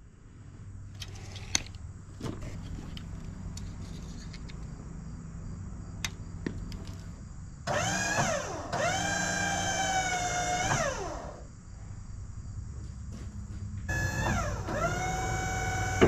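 Wood-Mizer LT50 sawmill's engine running with a low steady hum, with a few knocks in the first seconds. Twice, about eight and fourteen seconds in, a loud machine whine rises in pitch, holds level for a couple of seconds, then falls away, as the mill's hydraulics are worked.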